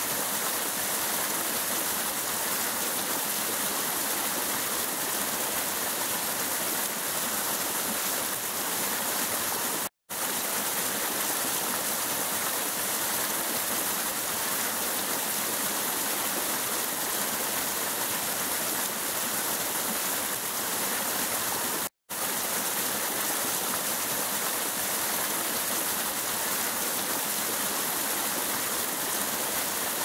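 Small stream rushing and splashing over rocks in a shallow cascade, a steady sound of white water. The sound cuts out for an instant twice, about a third and two-thirds of the way through.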